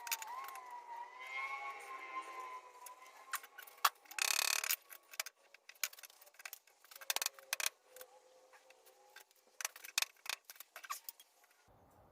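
Steel tools and work clicking and clinking at the bench, with a wavering squeal in the first few seconds, a short hiss about four seconds in, and a faint steady tone near eight seconds.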